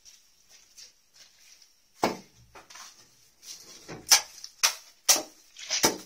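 Long-handled shovel scraping and scooping fallen plaster mortar off a concrete floor: a series of sharp scrapes and knocks starting about two seconds in, the loudest near the end.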